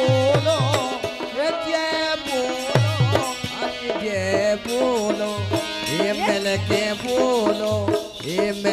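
Bundelkhandi devi rai folk music: a steady drum beat under a melody line that slides and turns between notes, with a jingle of small hand cymbals.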